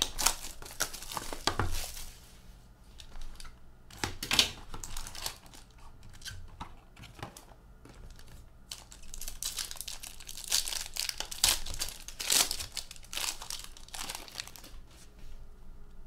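Plastic wrapping crinkling and tearing as a sealed hockey card box is opened, in irregular bursts with a quieter lull in the middle.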